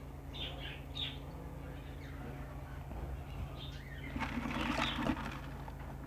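Small cage birds chirping with short, high calls over a steady low hum. About four seconds in there is a louder rustling burst lasting about a second, which fits birds fluttering as the nest box is handled.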